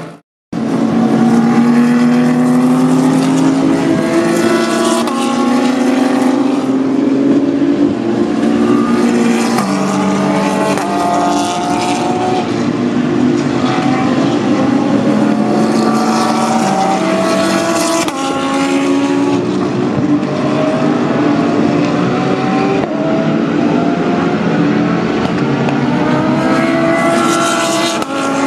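GT3 race car engines accelerating hard through the gears. The pitch climbs and drops back at each upshift every couple of seconds, over and over. The sound cuts out for a moment just after the start.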